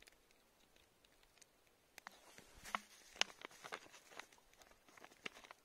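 Faint rustling and scattered light clicks of a plastic bag and plastic bottle being handled, starting about two seconds in.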